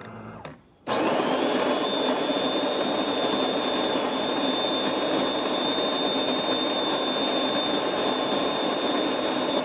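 DeLonghi Magnifica espresso machine's built-in burr grinder grinding coffee beans for a shot. It is a loud, steady motor whine with a rough grinding noise, starting just under a second in and running on without change.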